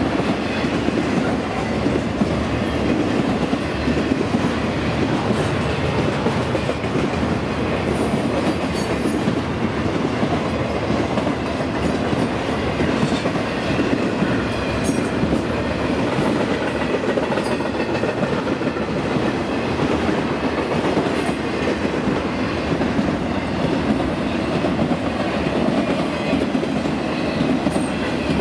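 Freight train's trailer-carrying intermodal spine cars rolling past at speed: a steady rumble and clatter of steel wheels on the rails, with a short high squeal about eight seconds in.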